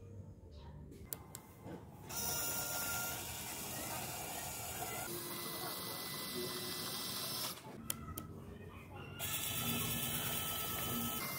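A small N20 geared DC motor turns the vise's lead screw with a steady whirring whine. It runs for about five seconds, stops with a couple of clicks, then starts again near the end.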